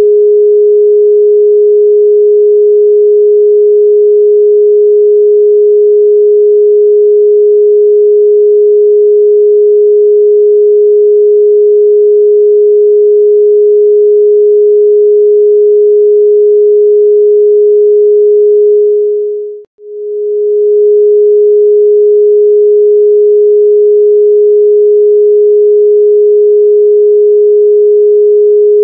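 A single pure electronic sine tone held at one steady mid pitch, a little above 400 Hz. About twenty seconds in it fades away to nothing and swells straight back to full level.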